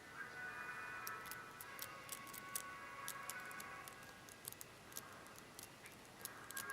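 Faint, irregular clicks and ticks of a hook pick working the pin stack of a Medeco Biaxial LFIC lock under tension, setting pins. The clicks come thickest in the middle, over faint steady tones in the background.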